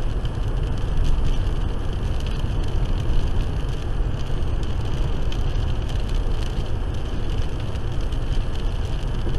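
Steady road noise of a car driving at highway speed on a wet road, its tyres hissing on the wet pavement, heard from inside the cabin.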